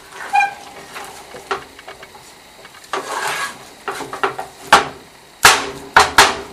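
A spoon scraping in a cooking pot, then several sharp knocks of the spoon against the pot, the loudest in a quick run near the end.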